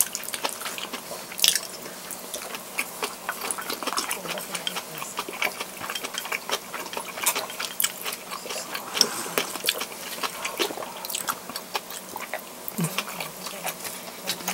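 A person chewing food close to the microphone: irregular small wet clicks and smacks from the mouth, with no words.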